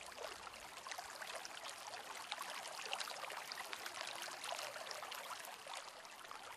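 Faint water ambience: a steady soft hiss full of small drips and patters, like trickling water or light rain.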